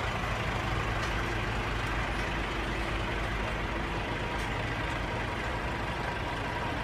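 Diesel engines of heavy articulated lorries idling in a slow queue, a steady low rumble with no sudden changes.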